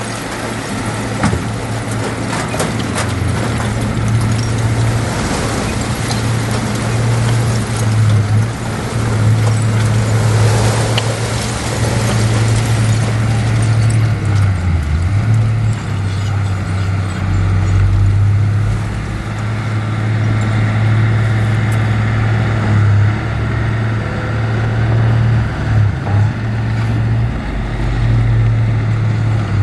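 Heavy diesel engine of earthmoving machinery running with a steady low drone that dips and shifts a little under load. Metallic clanks and a rushing, scraping noise come through in the first half and then die down.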